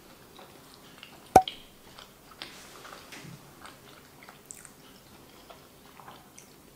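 Close-miked chewing of a soft pasticciotto leccese (shortcrust pastry with custard filling): quiet wet mouth sounds and small clicks, with one sharp click a little over a second in.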